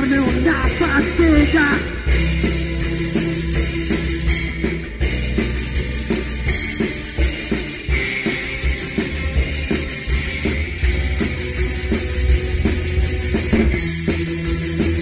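Punk rock song in an instrumental passage: a drum kit beats steadily under bass and electric guitar, with a sliding lead line in the first second or two.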